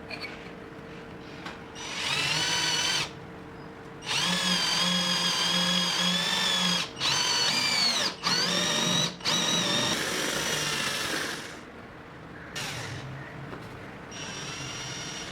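Electric drill running in repeated bursts of one to three seconds, its motor whine stopping and restarting several times with small dips in pitch.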